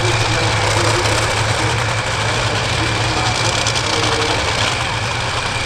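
Top Fuel dragster engines, supercharged nitromethane-burning V8s, idling loudly and steadily at the start line.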